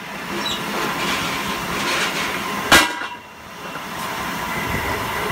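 Guardrail production machinery running with a steady mechanical noise, broken by one loud, sharp metallic bang a little under three seconds in.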